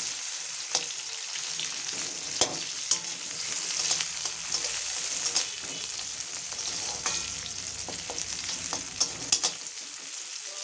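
Sliced onions sizzling in hot oil in a metal kadai: a steady frying hiss, broken by sharp scrapes and clicks of a metal spatula stirring them against the pan.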